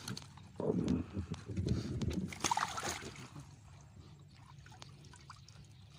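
Water splashing and trickling as a fishing net is hauled by hand through the water, busiest in the first three seconds, with one brighter splash about two and a half seconds in, then only faint lapping.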